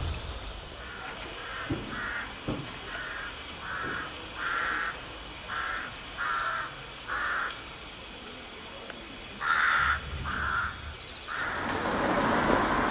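A crow cawing over and over, about a dozen short caws at uneven intervals. Near the end a steady rushing noise from the narrow-gauge steam train sets in.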